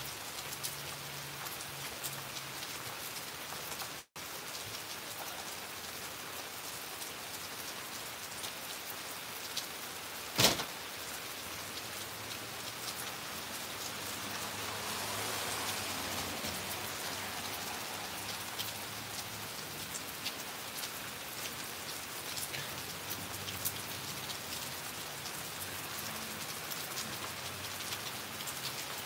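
Steady rain falling on the yard and street, an even hiss that swells louder for a few seconds in the middle. A single sharp knock about ten seconds in is the loudest sound, and the sound cuts out for an instant about four seconds in.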